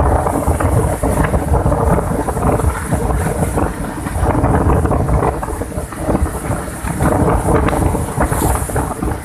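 Cyclone Ockhi's storm wind buffeting the microphone in heavy gusts, a deep rumble that swells and drops every second or two, over the steady rush of large waves breaking on the shore.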